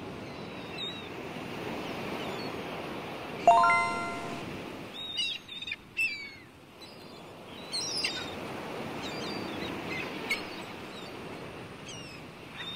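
Outdoor nature ambience: birds chirping over a steady hiss. A single bright ringing chime about three and a half seconds in, dying away over about a second, is the loudest sound.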